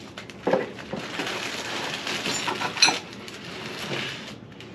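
Plastic packaging crinkling and rustling as bagged metal saw-kit parts are handled on a wooden bench, with a couple of sharper clicks, one about half a second in and one near three seconds.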